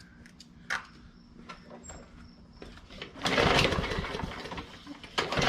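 A few light clicks, then the recoil starter of a Briggs & Stratton E/EX-series lawn mower engine pulled twice, about two seconds apart. Each pull cranks the engine briefly, and it does not catch: a no-start, more than likely from a carburetor clogged by gas left in over the winter.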